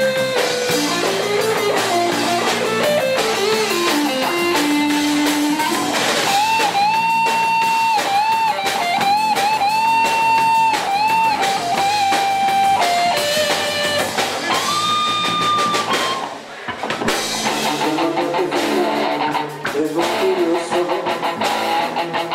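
Band music with guitar and drums. A held lead melody line carries the middle of the passage, and there is a brief drop-out about 16 seconds in.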